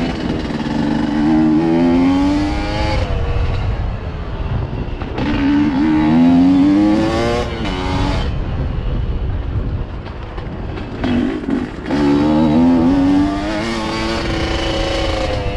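Dirt bike engine under way on a trail, revving up three times as the throttle opens and dropping back as it closes, with a low rumble of wind and trail noise underneath.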